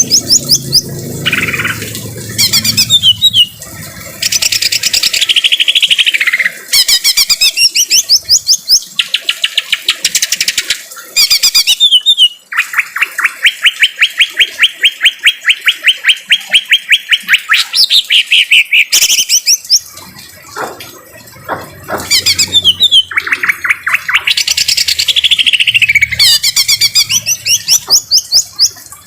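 Green leafbird (cucak ijo) singing loud, fast trills of rapidly repeated notes mixed with rough, harsh chattering phrases, some runs lasting several seconds.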